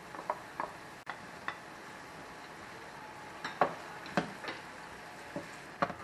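Wooden spatula stirring chopped onion and tomato in a nonstick frying pan, its edge knocking and scraping the pan in a few sharp, irregular clicks, loudest about three and a half and four seconds in.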